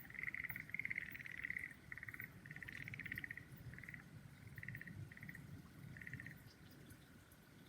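Frogs calling: a run of short, rapidly pulsed trilling calls, close together at first, then spaced out, stopping about six seconds in.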